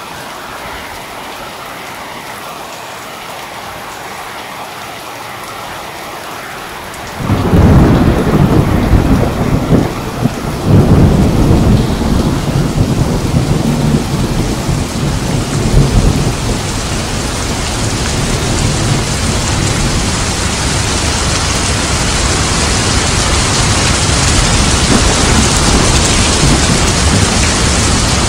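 Steady rain, then about seven seconds in a sudden loud rumble of thunder, with a second peal a few seconds later. After the thunder the rain is heavier and grows steadily louder.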